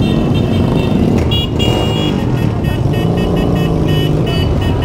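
Several motorcycle engines running at low speed in a slow-moving group ride. From about a second and a half in, a quick run of short, high beeping notes sounds over them.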